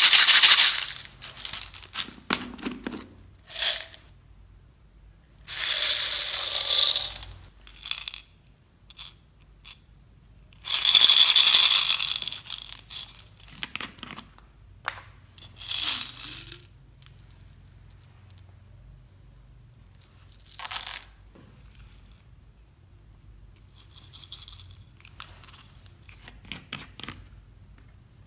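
Small plastic tube beads poured out of bottles into a glass bowl of slime, rattling and clattering as they spill. Several pours of a second or two each, the loudest near the start and about eleven seconds in, with scattered clicks of single beads between.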